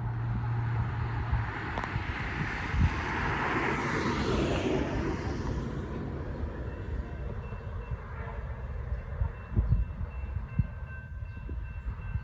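Train passing: rail and wheel noise swells to a peak about four seconds in, then eases off.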